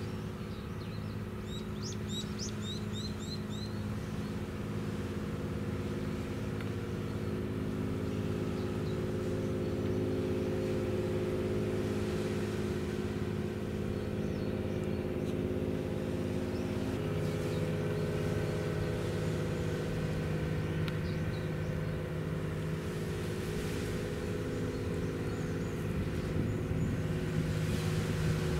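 A ship's engines running with a steady, multi-toned hum that slowly grows louder and shifts to a different pitch about seventeen seconds in. Small birds chirp briefly near the start.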